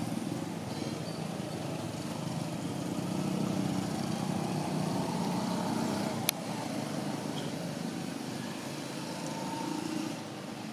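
A motor vehicle's engine running steadily. It grows louder through the middle and eases off near the end, with one sharp click a little over six seconds in.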